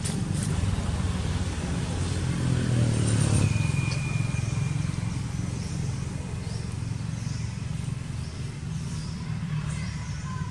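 Low engine rumble of a motor vehicle on the road. It swells about three seconds in, then settles back to a steady drone.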